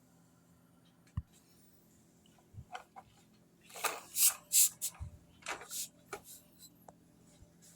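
Handling noises: a sharp click about a second in, then a quick run of short scraping, rustling sounds around the middle, and a few light ticks.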